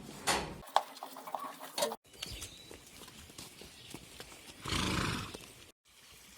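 Horse sounds: a few sharp knocks like hooves in the first second, then a loud, breathy noise lasting about half a second near the five-second mark. The sound cuts out abruptly twice.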